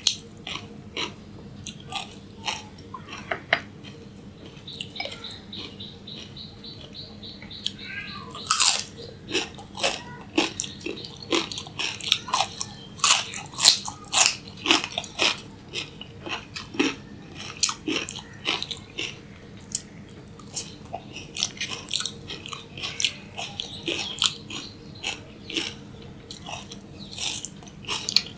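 Close-miked biting and crunchy chewing of raw vegetables, a carrot stick among them. Many sharp crunches come one after another, loudest around the middle.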